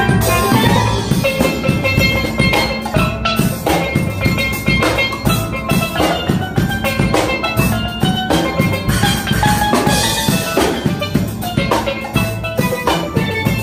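Steel band playing together: many steel pans ringing out over a drum kit keeping a steady beat.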